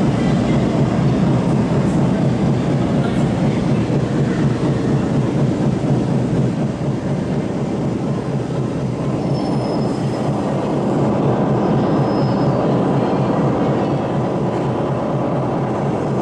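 MTR Island Line M-Train, a Metro-Cammell electric multiple unit, running past an underground station platform behind glass platform screen doors. It makes a steady, loud rolling and traction noise, with a couple of faint, brief, high squeals a little past the middle.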